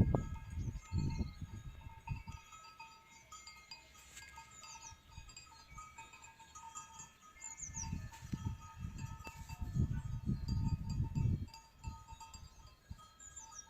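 Flock of sheep at pasture: bleating and bells clinking, with high bird chirps. Low rumbling gusts come at the start and again from about eight to eleven seconds in.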